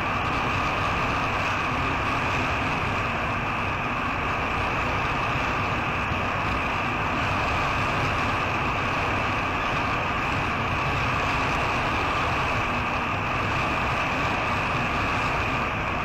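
A 1946 Aeronca Champ's engine and propeller drone steadily on final approach, heard from inside the small cockpit.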